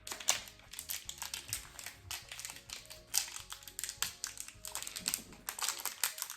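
Plastic wrapping of a miniature toy package crinkling and rustling as it is handled and opened, in many irregular crackles, over quiet background music.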